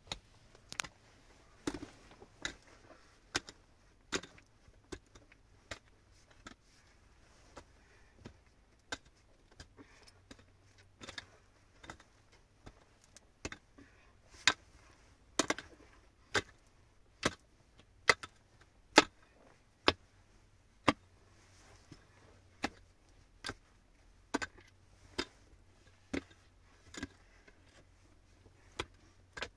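Repeated sharp knocks, irregularly spaced at about one or two a second, some much louder than others, the loudest around the middle.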